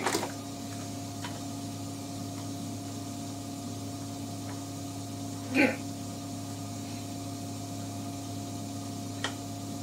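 Steady low hum of shop machinery, with a few light clicks as small parts are handled on a steel workbench and one brief pitched sound about halfway through.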